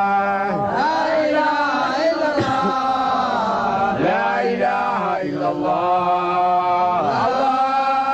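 Men's voices singing a Somali religious chant, drawn out in long, gliding notes without clear words, with several voices overlapping.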